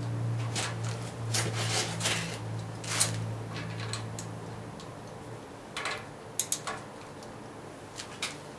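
A steel wrench clinking and knocking against a surface grinder's table as it is fitted to the gib adjusting screws. A steady low hum runs underneath and stops about halfway through.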